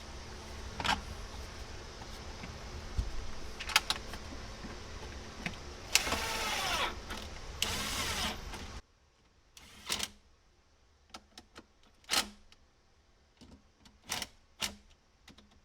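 Hand handling of small plastic and metal parts during reassembly of a generator: sharp clicks and taps, with two short scraping, rustling bursts a little past the middle. A steady background hum and hiss stops abruptly about nine seconds in, after which only separate clicks and taps remain.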